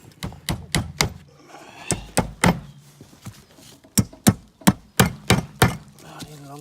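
A hammer striking nails into wood in three quick runs of blows, about three or four strikes a second.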